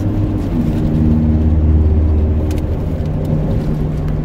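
Car engine running, heard from inside the cabin; its low note shifts and swells, loudest about two seconds in, then settles into a steady hum.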